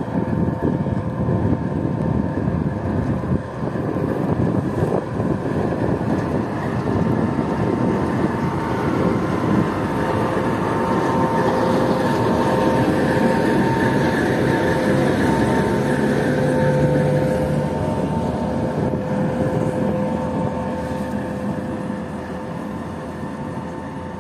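BR232 "Ludmilla" diesel locomotive running light during shunting: its Kolomna 16-cylinder diesel engine runs with a steady whine over a deep rumble. It gets louder as the locomotive passes close, about halfway through, then fades as it pulls away.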